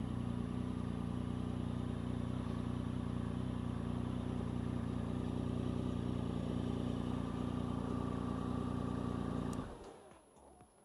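2013 Triumph Tiger 1050 Sport's three-cylinder engine idling steadily through an SC Project aftermarket exhaust, then switched off about nine and a half seconds in.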